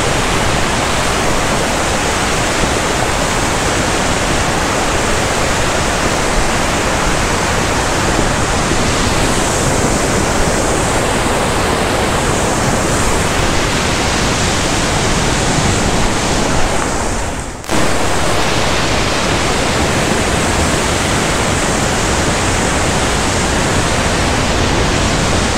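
Loud, steady rushing of a fast, muddy glacial stream torrent, heard close up from a plank footbridge over it. The sound drops out for a moment about seventeen seconds in, then comes straight back.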